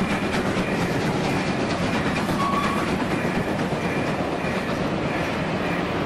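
Train rolling past, wheels clattering rhythmically over the rail joints under a steady rumble, with a brief high tone about two and a half seconds in.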